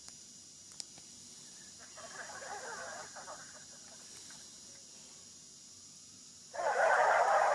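A Sony Ericsson W810i ringtone playing: a grainy, hiss-like sound effect, softer from about two to three and a half seconds in, then starting again much louder about six and a half seconds in.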